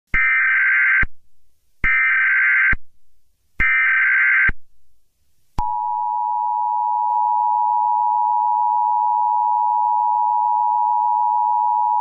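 Emergency Alert System header: three short bursts of screeching SAME digital data tones, each just under a second long, then, about five and a half seconds in, the steady two-tone EAS attention signal (853 and 960 Hz played together), which holds on unbroken.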